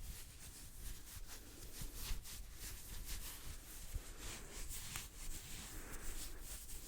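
Hands rubbing and brushing together close to a high-sensitivity microphone, making a continuous run of quick, soft swishes with light taps.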